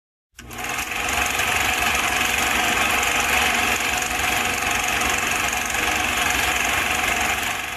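A steady mechanical running noise, like a motor, that starts abruptly and cuts off abruptly.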